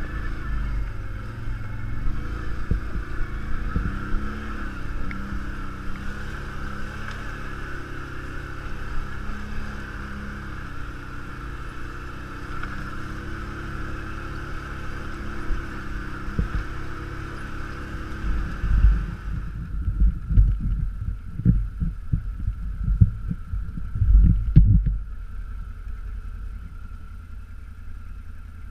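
ATV engine running as it climbs a rough rocky trail, its pitch rising and falling with the throttle. About two-thirds of the way through, the higher part of the engine sound drops away and heavy low thumps follow for a few seconds, then a steady low hum.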